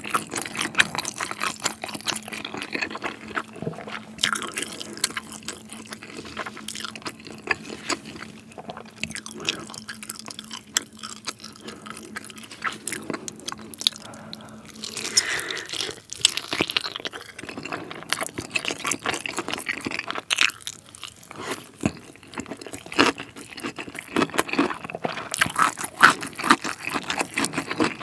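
Close-miked chewing and biting of sauced chicken drumsticks, with crunching and repeated sharp clicks and smacks as the meat is torn off and chewed. A faint steady low hum runs under the first half and stops about halfway through.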